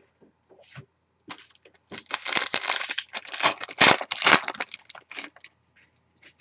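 A baseball card pack's wrapper being torn open and crinkled, a dense crackling for about four seconds.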